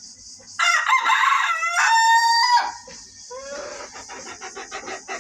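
A rooster crows loudly once, a call of about two seconds that ends on a held note. It is followed by a run of quick, softer clucks.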